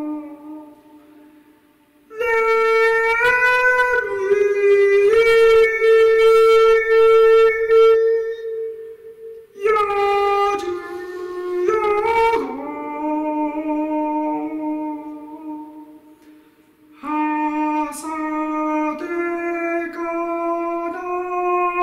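Music of a wind instrument playing long, held notes that step up and down in pitch, fading out briefly about two seconds in and again a few seconds before the end.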